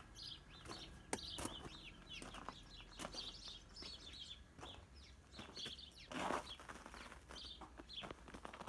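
Birds chirping repeatedly in short high calls, with one louder, lower call about six seconds in, over a few soft knocks.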